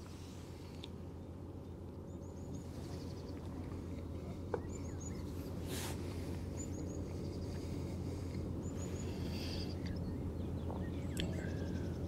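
Small birds calling in short runs of three or four high chirps, repeated every second or two, over a steady low rumble that slowly grows louder. A single click about four and a half seconds in.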